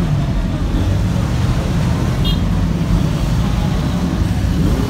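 Steady low rumble of a motor vehicle running close by, with a brief high chirp a little past two seconds in.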